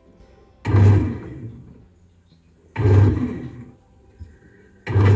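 Bread machine's kneading motor running in short pulses, three in all, about two seconds apart, each a brief low hum that dies away: the opening mix of a bread cycle.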